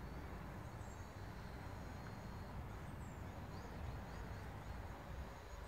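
Open-air ambience: a low, uneven rumble of wind on the microphone, with a bird chirping faintly a few times in quick succession in the second half.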